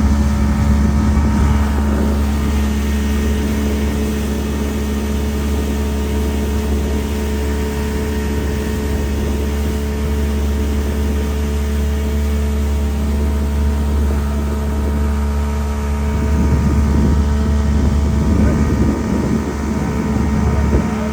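An engine running steadily with a constant low hum; the noise swells for a few seconds near the end.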